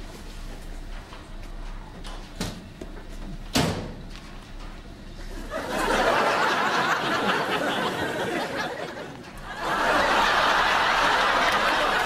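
A few light knocks, then studio audience laughter that swells up about halfway through, dips briefly, and rises again near the end.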